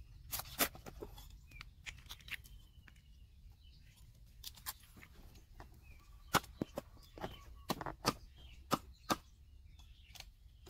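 Cleaver chopping a raw chicken on a round wooden chopping block: sharp, irregular chops in quick clusters, the loudest run coming in the second half.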